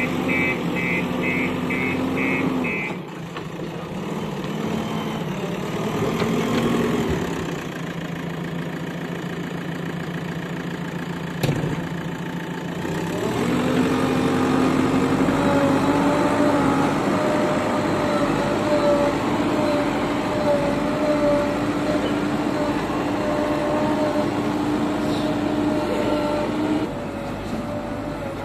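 JCB backhoe loader's diesel engine running under work as the front loader bucket is worked through soil. The engine note drops about three seconds in, picks up again around halfway and holds steady until near the end. A repeating high beep sounds during the first couple of seconds.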